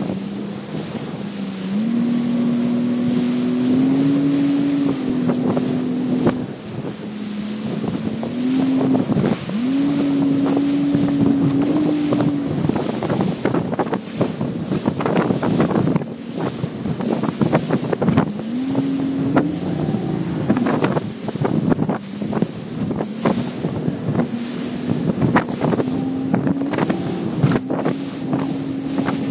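A fishing boat's outboard motor running at speed across choppy lake water, its pitch stepping up and down repeatedly. The hull slaps the waves in repeated knocks, more often in the second half, and wind buffets the microphone.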